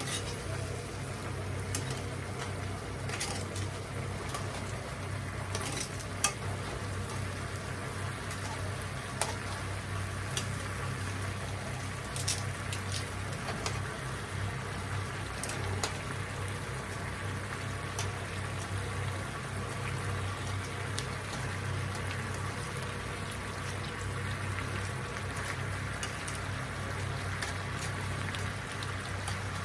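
Food cooking on a stovetop: a steady bubbling, frying hiss over a low hum, with a few light clicks.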